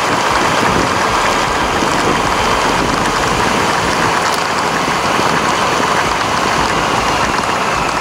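Steady rushing wind and road noise on the action camera's microphone from a Honda CB400 Super Four being ridden, with its inline-four engine running underneath.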